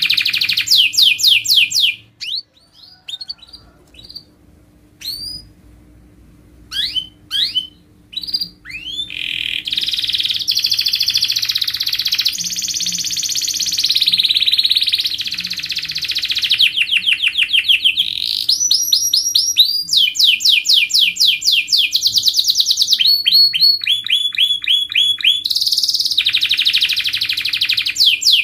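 Domestic canary singing: fast rolling trills of rapidly repeated notes, broken by a few seconds of scattered single chirps and upswept notes near the start, then long unbroken rolls that change pitch and speed.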